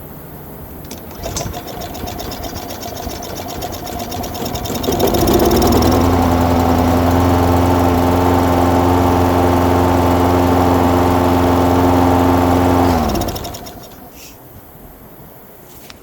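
Lawn mower's small gasoline engine, long unused, catching about five seconds in after a rising stretch of rough cranking noise. It runs steadily for about eight seconds, then cuts out. It is starting for the first time in years now that the clogged fuel line has been blown clear with compressed air.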